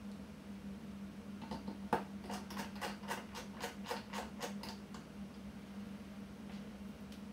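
A run of about a dozen small, sharp clicks, roughly three a second, from hands working on a Sony ILX-LR1 camera body, over a faint steady low hum. The first click is the loudest and the clicks stop about two-thirds of the way through.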